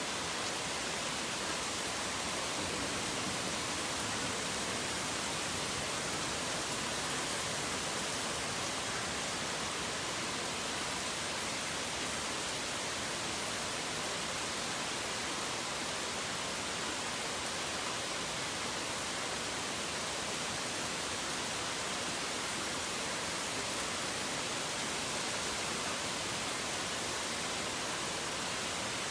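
Steady rain falling, an even hiss with no separate drops, thunder or birds standing out.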